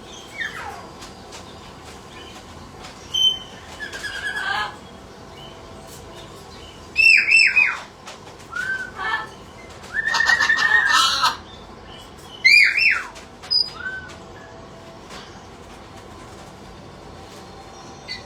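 Pet parrots calling: a string of separate short squawks and falling whistled calls, with quiet spells between them. The loudest calls come in the middle stretch.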